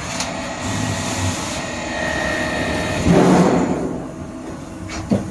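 Slant-bed CNC lathe running, with a steady machine whine and a louder stretch of cutting noise about three seconds in.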